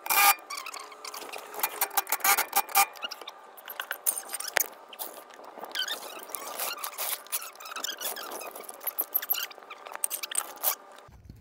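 Wheel-and-jack work sounds played back sped up in a time-lapse: a rapid jumble of clicks and tool clatter with squeaky, chipmunk-like high sounds, from an impact wrench on lug nuts, tools being handled and a floor jack being worked. The sped-up racket gives way to quieter sound near the end.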